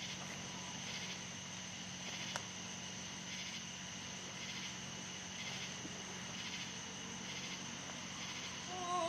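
Crickets or similar insects chirping: a steady high trill with a pulsing chirp about once a second, over a low steady hum. A woman's singing starts right at the end.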